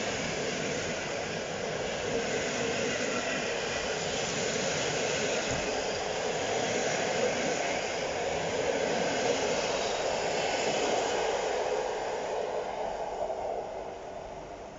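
Passenger coaches of a locomotive-hauled PKP Intercity train rolling past: a steady rumble and hiss of wheels on rail that dies down near the end.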